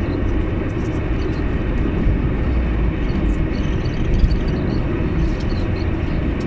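Steady road and engine noise inside a car's cabin while driving at highway speed: a continuous low rumble of tyres and engine.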